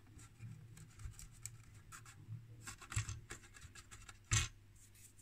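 Faint scratching and small clicks of a hand handling and pressing on a metal instrument case, with one sharper knock about four seconds in.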